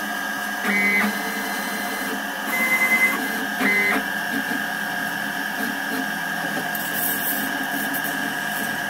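CNC milling machine spindle cutting slots in a metal part with an 8 mm end mill, giving a steady high-pitched whine, a sign that the spindle RPM is too high. The tone shifts briefly about one second in and again about four seconds in.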